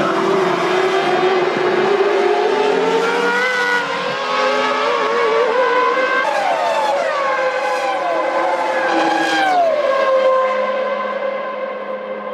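1998 Formula One cars' V10 engines running at high revs as cars go by, with the engine note dropping sharply several times and the sound easing off near the end.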